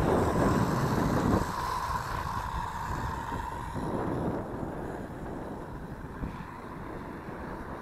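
Whine of the MJX Hyper Go RC cars' electric motors, a steady high tone that fades after about four seconds as the cars pull away, over wind buffeting the microphone.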